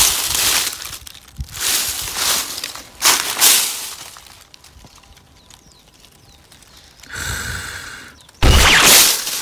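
Dry fallen leaves rustling and crackling as a gloved hand pushes through them, in several bursts. The loudest comes near the end. About two-thirds of the way through there is a short buzzing sound.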